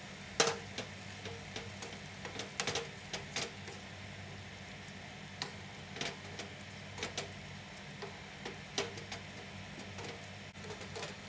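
Wooden spatula stirring a watery filling in a nonstick frying pan, with irregular light knocks and scrapes against the pan, over a low steady hum.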